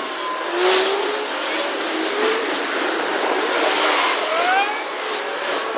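Road traffic and wind noise heard while riding a bicycle along city streets: a steady rushing hiss with vehicle whines that glide up and down in pitch, one rising about four seconds in.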